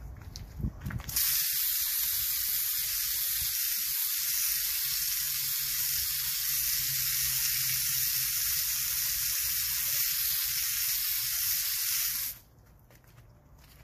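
Garden hose spray nozzle jetting water onto wet concrete, rinsing a treated stripe: a steady hiss that starts about a second in and cuts off suddenly near the end.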